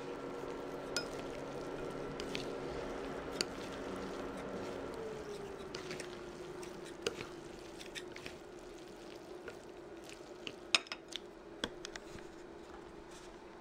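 Wooden chopsticks click and tap against a ceramic bowl while spaghetti is tossed and mixed with a mayonnaise and natto sauce, the sharpest clack coming about eleven seconds in. Underneath runs a steady hum of several tones; about five seconds in, one of its tones slides down in pitch and settles lower.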